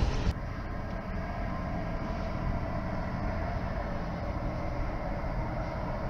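Freightliner Class 66 diesel-electric locomotive with its two-stroke V12 running steadily, hauling a container freight train, heard at a distance as an even low rumble with wheel noise. A louder passing-train sound cuts off abruptly at the very start.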